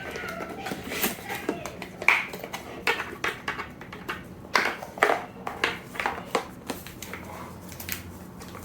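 Small objects and packaging being handled at close range: irregular clicks, taps and knocks, several a second at times, with faint voices behind.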